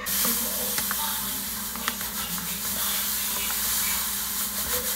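Granulated sugar pouring in a steady stream from a paper bag into a clear canister: an even, grainy hiss that starts suddenly as the pour begins.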